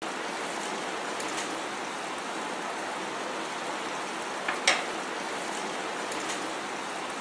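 Sugar-and-water syrup boiling vigorously in a non-stick frying pan, a steady bubbling hiss. One sharp click about two-thirds of the way through.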